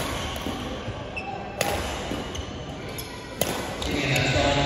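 Badminton rackets hitting a shuttlecock: two sharp hits about two seconds apart, with people talking in the background from a little past halfway.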